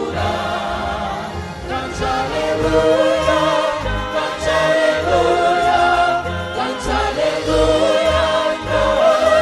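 A choir sings a gospel song over instrumental backing with a regular bass beat, the voices held with vibrato.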